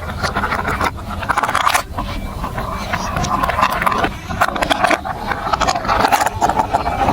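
Marbles rolling and clattering along a plastic building-block marble run: a continuous rolling rumble with many small clicks, swelling and fading as the marbles travel along the track.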